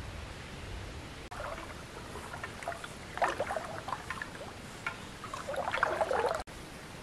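River water splashing and sloshing in irregular bursts, loudest about three seconds in and again near the end.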